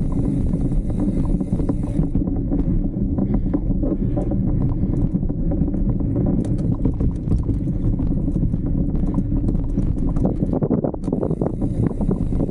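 Mountain bike rolling over slickrock, with a steady low rumble of wind on the microphone and many rattling clicks from the bike and tyres, thickest from about six to ten seconds in.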